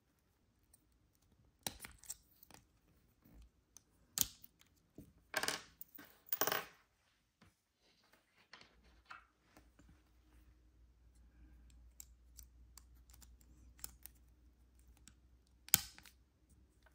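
Small clicks and scrapes from a Lexus smart key fob's plastic case and its CR2032 coin-cell battery being handled during a battery change. Scattered clicks come first, then two brief scraping rubs a few seconds in, and a single sharp click near the end, the loudest sound.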